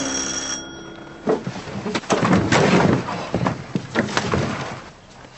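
The last piano chord dies away, then a front door's lock and latch are fumbled with: a run of clicks, knocks and rattling that fades near the end.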